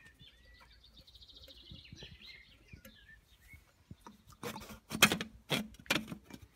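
Faint bird chirping, then from about four and a half seconds in, a run of loud metal scraping and clinking as the metal starter bullet is worked loose and slid off the front of a Rolls-Royce Gnome turboshaft engine's intake.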